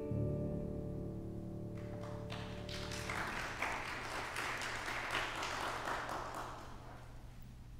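A piano's final chord rings on and fades out over the first three seconds. Scattered claps start about two seconds in and build into steady applause from the congregation, which tapers off near the end.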